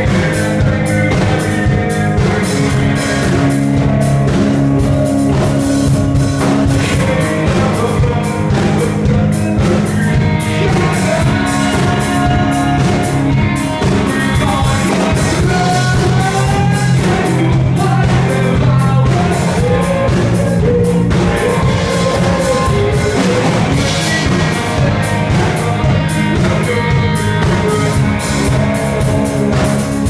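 Rock band playing live: drum kit, electric guitars and bass, with a singer over the top. The music runs loud and steady, without breaks.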